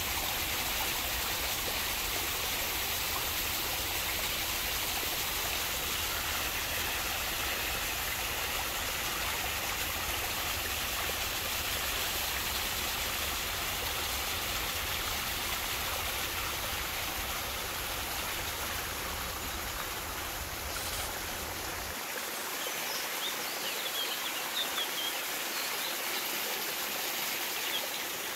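Steady rush of running water from a small woodland stream and waterfall. A few bird chirps come in near the end.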